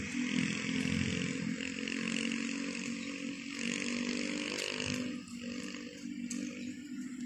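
A small engine running steadily, its pitch rising a little about halfway through.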